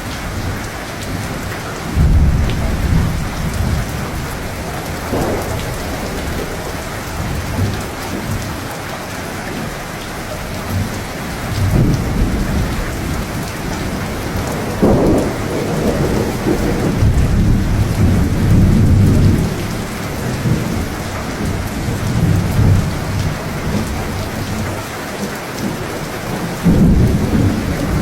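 Steady rain with rolling thunder. Low rumbles of thunder swell up several times: about two seconds in, around twelve seconds, a long one in the middle, and again near the end.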